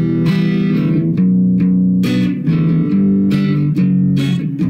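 Clean electric guitar, an Epiphone Les Paul, strummed in a country-style 2/4 pattern: a picked bass note followed by down-and-up strums over the higher strings, two or three strokes a second, with the chord changing about every second.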